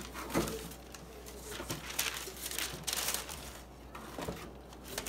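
Tissue paper rustling and crinkling in a cardboard shoebox in irregular bursts as a sneaker is lifted out.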